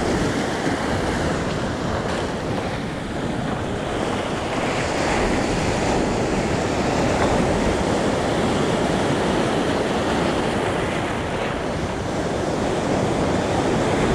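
Sea surf breaking and washing up over a beach of rounded stones, a continuous rush of water.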